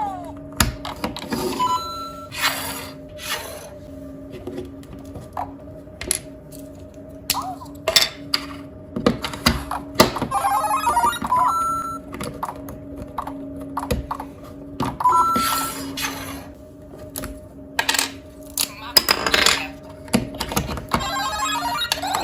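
Electronic sound effects from LEGO Super Mario and Luigi interactive figures: short beeps, jingles and coin chimes from their small speakers, mixed with sharp clicks and knocks of plastic pieces.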